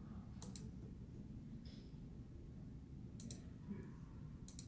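Faint, sharp clicks in quick pairs, three times: about half a second in, just past three seconds, and near the end, over a low steady room hum.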